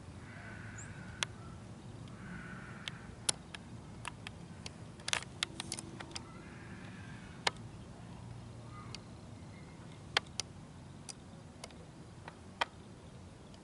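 Handling noise from a handheld zoomed-in camera: irregular sharp clicks and ticks scattered through, over a low steady hum.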